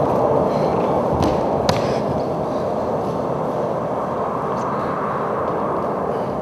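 A steady rushing, rumbling noise, with a couple of sharp clicks a little over a second in.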